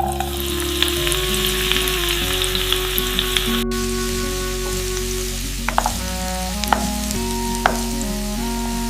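Background music with a bass line and plucked notes, overlaid for the first few seconds by a sizzling hiss that cuts off abruptly.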